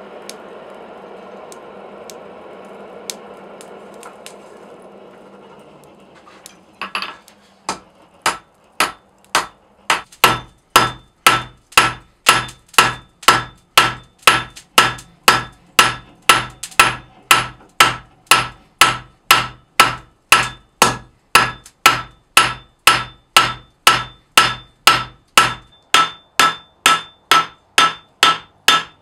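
A forge fire rushing for about the first six seconds, then a hand hammer striking hot mild steel on an anvil. The blows start slowly and settle into an even rhythm of about two ringing strikes a second.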